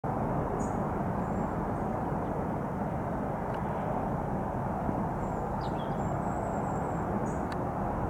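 Steady outdoor background rush with no distinct engine sound, with a few faint high chirps from small birds.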